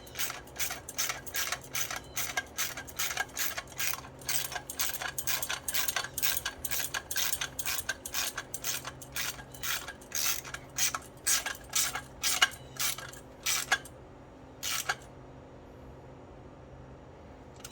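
Ratchet wrench clicking steadily, about three clicks a second, as a lock nut is run down onto a 1/4-inch carriage bolt; the clicking stops about 14 seconds in after one last click.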